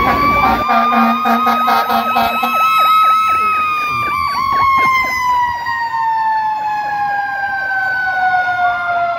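Fire truck sirens sounding together. One long siren tone rises a little over the first few seconds, then slowly winds down in pitch. Under it a second siren warbles in a fast repeating swoop.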